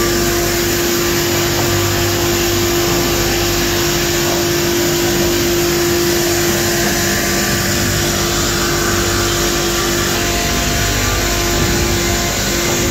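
Double-spindle multi-blade rip saw running under load as wooden slabs are fed through it: a loud, steady machine noise with a steady whine over it that briefly drops out near the end.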